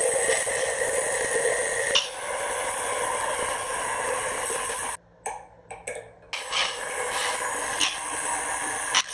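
Angle grinder with a cutoff disc cutting through a clamped steel plate: a steady, loud grinding hiss. It drops out for about a second around the middle with a few short stutters, then the cut runs steadily again.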